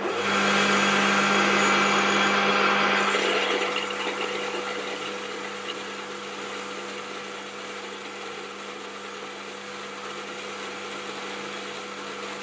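Warco GH1330 gear-head lathe running steadily under load as a carbide tool takes a heavy 3 mm-deep cut in mild steel, with a constant hum. The motor is not bogging down under the cut. The sound is louder for the first three seconds or so, then settles lower and steady.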